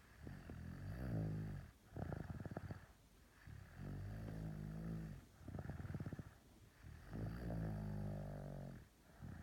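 A sleeper snoring: a low, buzzing snore on each breath, about five of them, one every second and a half to two seconds.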